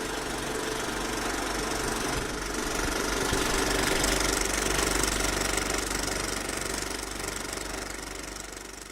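Viper 3D printer running: a steady mechanical whirr of stepper motors and fans with a fast, even pulsing. It swells toward the middle and fades away near the end.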